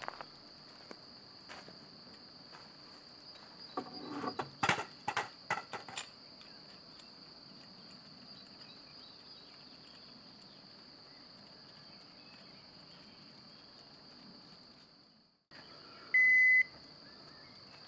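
An electronic carp bite alarm on the rod pod gives one short, loud, pure beep near the end. Before it there are a few clicks and knocks around four to six seconds in, over a steady high-pitched background trill.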